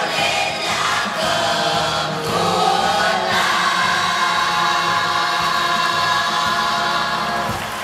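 Choir singing in parts, moving through a few chords and then holding a long final chord from about three seconds in, which cuts off together just before the end: the close of the piece.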